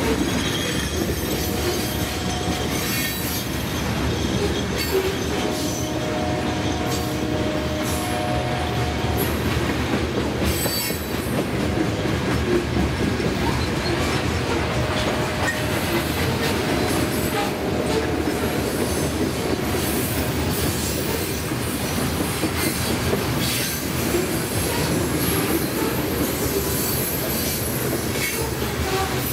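Covered hopper cars of a freight train rolling past at steady speed: a continuous rumble and clatter of steel wheels on the rail, with thin wheel squeals that come and go.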